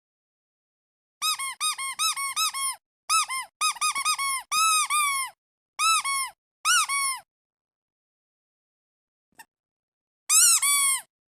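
Squeaky duck toy squeezed over and over in quick runs of squeaks, each squeak rising and then falling in pitch. The runs are broken by dead silence, and the last run, near the end, is the loudest.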